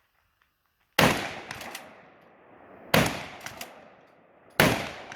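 Wolverine XP 12-gauge pump shotgun fired three times in quick succession with 3-inch shells, about two seconds apart, each shot fading over about a second. The pump action is racked with a double click after the first two shots.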